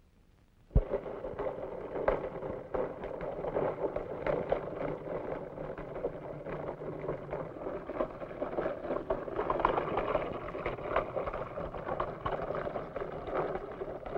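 A thin jet of mercury pouring into a small clear trough, splashing and pattering steadily. It starts with a sharp click about a second in.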